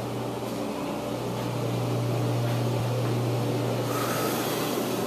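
A steady low hum under an even hiss, from a fan or motor running; the hiss grows brighter near the end.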